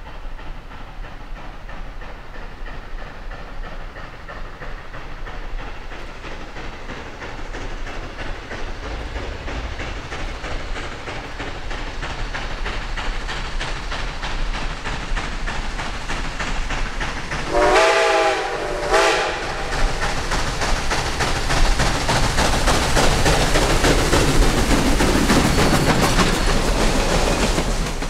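Steam locomotive approaching with its train, its running noise growing steadily louder as it nears. A little past halfway it sounds two short blasts on its steam whistle, several tones at once.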